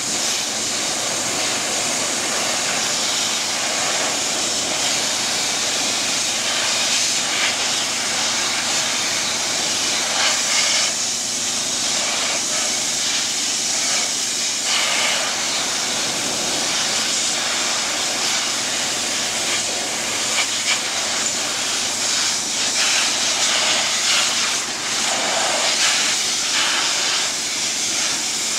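Densin high-pressure washer jet spraying water onto metal racks: a loud, steady hiss with small swells as the nozzle moves over the metal.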